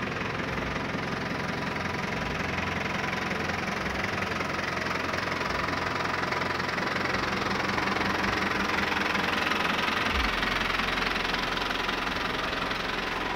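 An engine idling steadily, a little louder for a few seconds in the middle.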